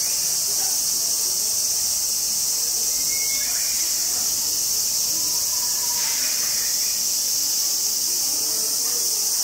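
Insects chirring in a steady, high-pitched drone.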